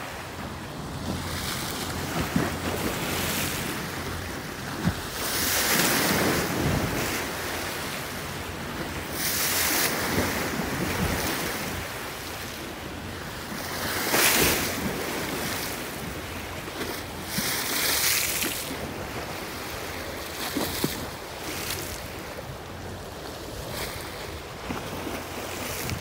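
Lake Erie waves crashing and splashing against a sloping concrete seawall, a louder surge every few seconds over a steady wash of water, with wind buffeting the microphone.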